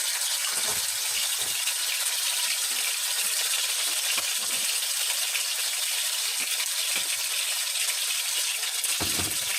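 Chicken pieces sizzling in hot oil in a frying pan, a steady hiss, with a few soft knocks.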